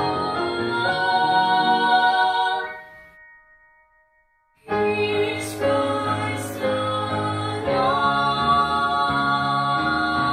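Three young female voices singing together in harmony through handheld microphones. The singing fades out about three seconds in, leaving near silence for a moment and a half, then comes back about four and a half seconds in.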